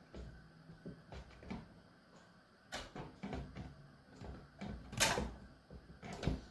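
Irregular clicks and knocks of a graphics card and its metal slot bracket being handled and pushed into place in a PC case, with a sharper knock about three seconds in and the loudest about five seconds in.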